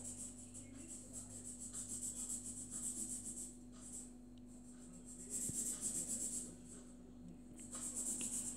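Black felt-tip marker scratching across paper in several separate strokes with short pauses between them.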